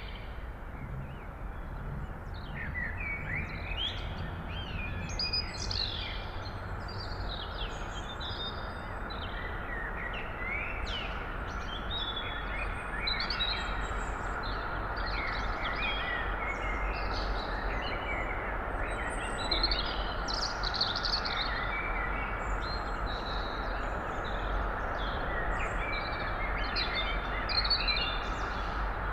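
Blackbird singing with other birds chirping, many short phrases throughout, over a steady low hum of early-morning town background noise.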